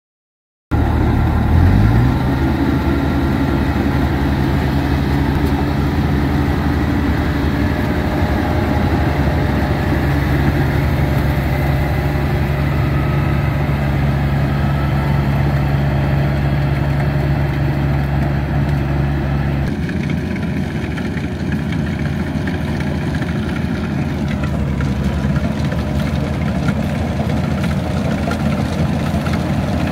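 Combine harvester's diesel engine running steadily, with a deep, even hum that drops lower in level about two-thirds of the way through.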